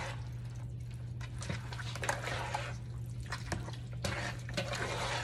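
Spoon stirring ground beef into melted cheese and Rotel tomatoes in a plastic bowl: several uneven wet stirring strokes through the thick dip.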